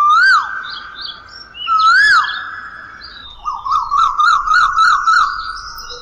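Whistled bird calls. There are two rising-and-falling swoops about two seconds apart, then a quick warbling trill of roughly five notes a second for nearly two seconds, over a held whistle tone.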